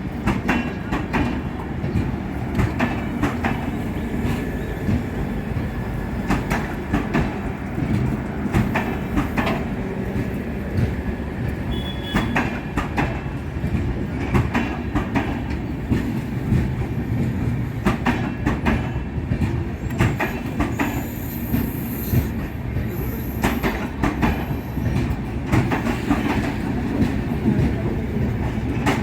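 Passenger train running on track: a steady rumble of rolling coaches with frequent sharp clicks as the wheels pass over rail joints.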